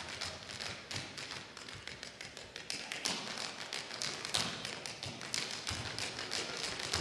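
A group of tap dancers' tap shoes striking the stage floor in unison, a quick, dense run of sharp clicks and heel taps.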